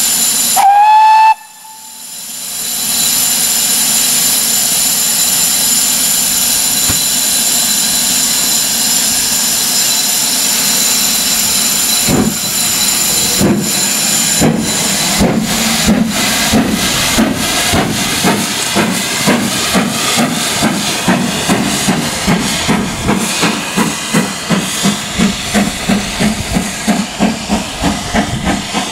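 GWR King class steam locomotive 6023 King Edward II gives a short, rising whistle, then steam hisses steadily. From about twelve seconds in its exhaust beats start slowly and quicken as it pulls away.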